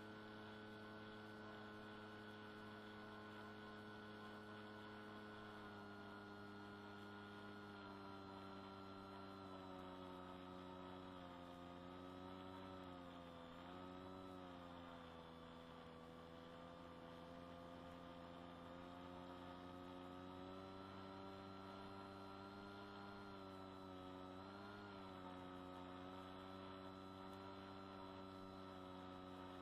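Electric motor and propeller of a Swift II FPV plane, heard faintly through its small onboard microphone: a steady drone whose pitch sags twice as the throttle eases back, about halfway through and again near the end. It sits over a constant low hum.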